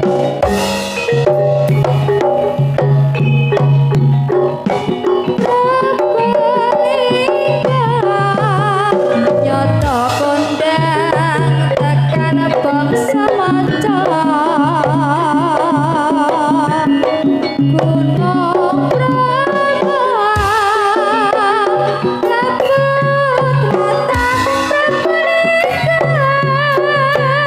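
Javanese campursari music with kendang hand-drum rhythm, a melody with heavy vibrato and a deep bass note that recurs every few seconds.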